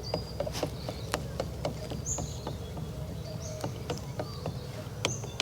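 Outdoor ambience with a few short, high bird chirps over a low steady rumble, and scattered light clicks and taps.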